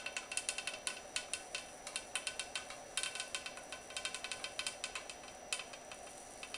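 Hot-wire foam cutter bow being drawn through a foam block along wooden wing templates, making rapid, irregular crackling and ticking.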